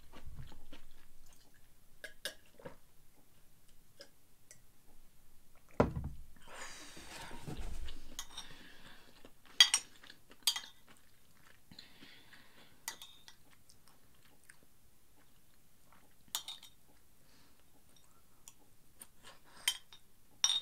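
A metal spoon clinking and scraping on a ceramic plate while fried rice is scooped up, with a handful of sharp clinks spread through, and soft chewing between mouthfuls.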